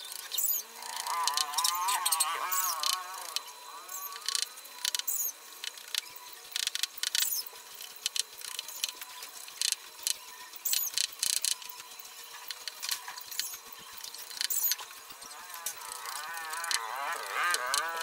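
Large knife shaving a bamboo stick in quick, irregular scraping strokes. A farm animal gives a wavering call about a second in and again near the end.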